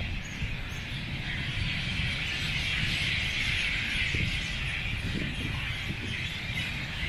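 Outdoor ambience of a dense chorus of many birds chirping, swelling in the middle, over a low rumble.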